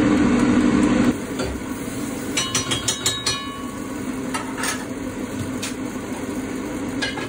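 Stirring in a Dutch pot, with a cluster of metal clinks about two and a half seconds in and a few lighter knocks later. Underneath, the air fryer's fan hums steadily, louder for the first second.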